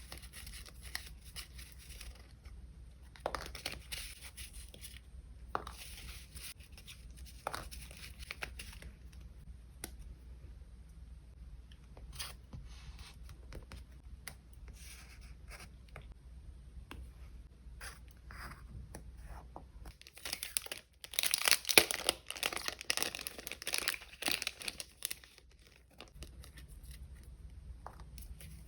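Paper and sticker materials being handled close up: soft rustling, crinkling and short tears, with a louder, busier stretch of rustling and tearing about three quarters of the way through.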